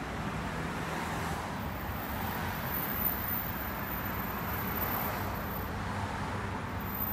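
Steady outdoor city background: a low, even hum of street traffic with no distinct events.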